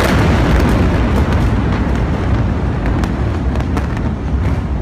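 The roar and rumble of a large explosion going on after the blast, easing slowly, with scattered sharp cracks and pops through it.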